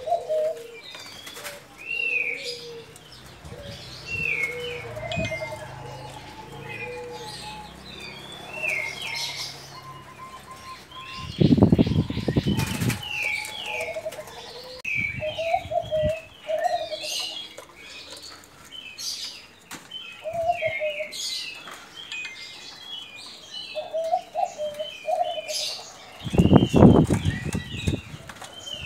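Caged doves cooing in short rolling notes, with small birds chirping throughout. Twice there is a loud burst of wing flapping, about twelve seconds in and again near the end.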